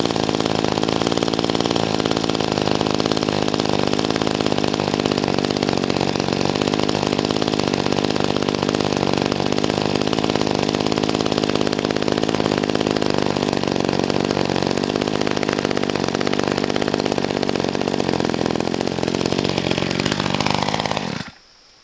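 Small two-stroke engine of a gas multi-tool trimmer running steadily, then shut off about a second before the end. It shakes with far too much vibration, which the owner puts down to an attachment not fitted right.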